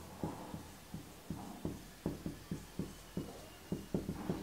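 Marker writing on a whiteboard: a run of short, light taps and strokes, about three a second.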